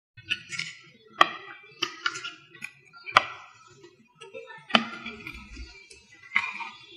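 Hen's eggs set down on a ceramic plate: about six sharp clacks of eggshell on glazed china, irregularly spaced, each ringing briefly.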